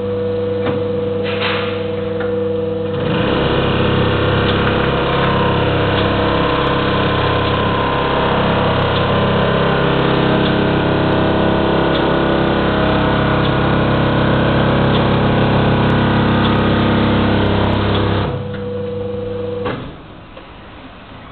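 Vacuumatic Vicount 3 pin-and-blade paper counting machine at work. It starts with a steady hum. About three seconds in, the counting head begins running through a stack of copy paper, counting and tabbing it in batches of 50, with a loud, steady mechanical whirring. The counting stops about 18 seconds in, and the hum runs on briefly before cutting off.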